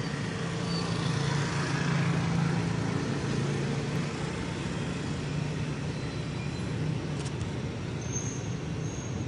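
Steady low background rumble and hum with a hiss over it.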